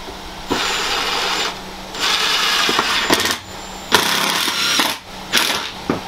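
Cordless drill driving a screw into the RV wall to fasten a shower-rod bracket, run in four short bursts. The sound of the screw biting means it is catching in something solid behind the wall.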